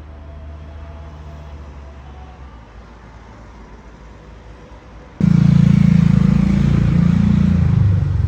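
A low, steady engine-like hum, then an abrupt cut about five seconds in to a much louder close vehicle engine whose pitch drops near the end.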